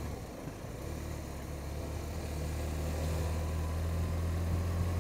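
Motorcycle engine running steadily with a low hum that grows slowly louder.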